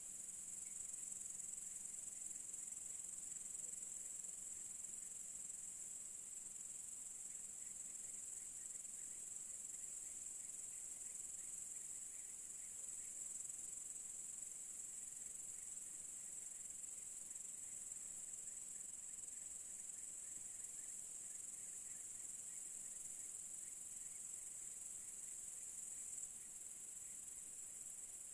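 Crickets singing in a steady, high-pitched chorus, with faint short chirps lower in pitch repeating underneath.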